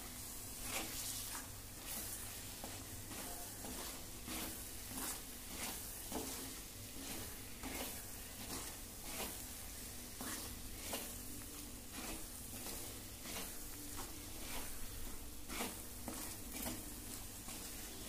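Wooden spatula stirring and scraping thick masala paste around a clay pot, in strokes about one to two a second, over a soft sizzle as the paste fries down in its oil.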